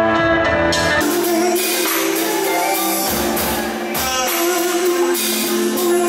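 Live band music with electric guitar, heard from the audience. About a second in it cuts abruptly to a different song, with a singer over guitar.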